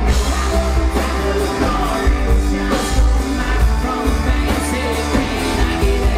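Live country band playing on stage: a singer over electric guitars, bass guitar and drums, with a heavy bass end, heard from within the crowd.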